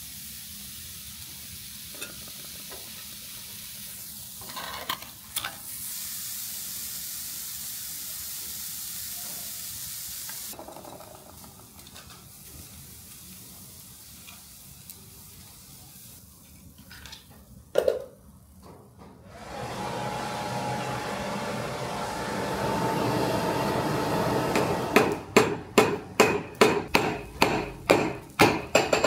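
A steady hiss with a few knocks, then a quieter stretch broken by one sharp clank, then a steady roar with a faint hum. Near the end comes a fast run of hammer blows on steel, about three a second, as in forging.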